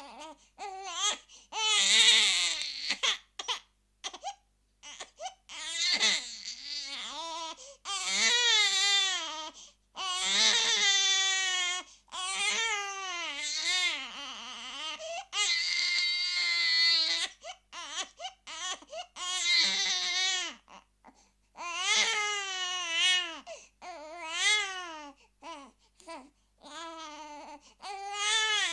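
A baby crying in long wails of one to two seconds each, broken by short gasps for breath.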